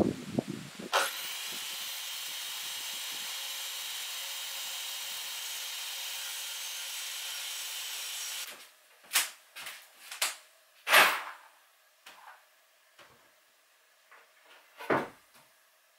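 A handheld power saw starts about a second in and cuts steadily through a wooden countertop board for about seven seconds, then stops. A few separate wooden knocks follow as the cut board is handled and laid onto the kitchen counter, the loudest about three seconds after the saw stops.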